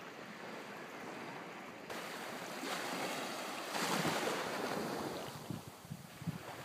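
Small waves washing onto a sandy shore, with wind buffeting the microphone; the rush swells loudest about four seconds in.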